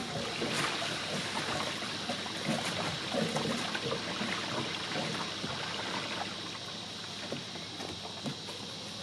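Gray water gurgling and trickling down a corrugated RV sewer hose into a Camco Rhino portable tote tank. The flow is stronger for the first several seconds, then eases off.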